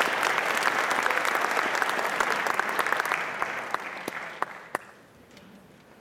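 Audience applauding, the clapping thinning out about three seconds in and dying away to a few scattered last claps near the end.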